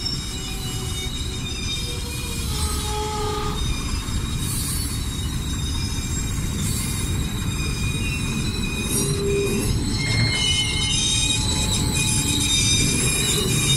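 Freight train of open steel wagons rolling past at close range: a steady rumble of wheels on rail, with high thin squeals from the steel wheels as the wagons run round the curve.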